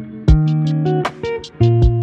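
Background music: plucked guitar with bass and a steady drum beat.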